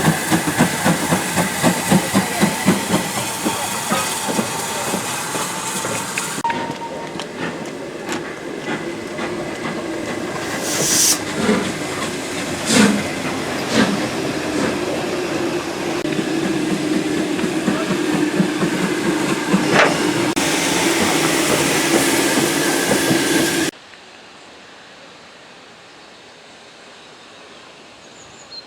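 Steam locomotive working a train, with regular exhaust beats about three a second and steam hiss. The train then rolls on with a steady rumble and occasional clicks of wheels over rail joints. Near the end the sound cuts off abruptly to a quiet outdoor background.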